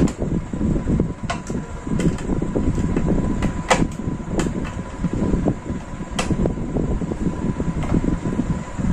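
Sharp, irregular clicks and taps as a screwdriver and hands work the terminal cover on a Microtek EML 5090 voltage stabilizer's metal cabinet, over a steady low background rumble.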